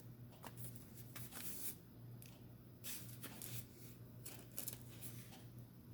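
Faint handling of tarot cards: scattered soft rustles and light clicks over a low steady hum.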